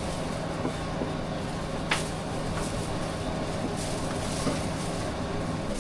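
Steady low hum over a bed of background noise, with a few faint knocks and one sharp click about two seconds in.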